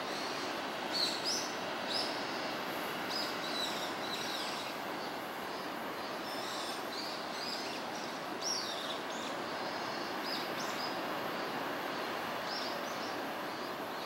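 Distant surf breaking at the foot of sea cliffs, heard as a steady, even wash, with small birds giving short, high chirps over it, most of them in the first half.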